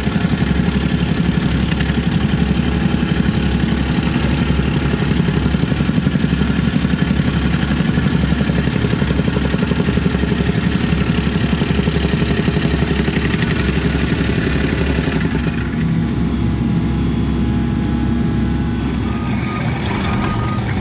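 Diesel engine of a compact construction machine, running steadily with a fast, even pulse. About fifteen seconds in, it drops to a quieter, duller running.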